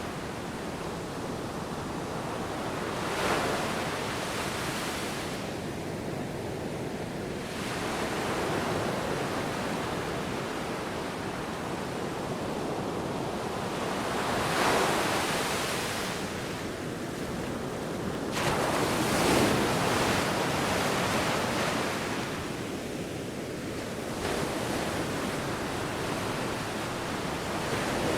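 Sea waves breaking and washing on a shore, a continuous rushing surf that swells into a louder wash every few seconds.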